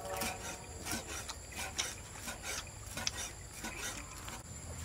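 Cleaver chopping grilled meat on a chopping board: a dozen or so sharp, irregular chops, about two to three a second.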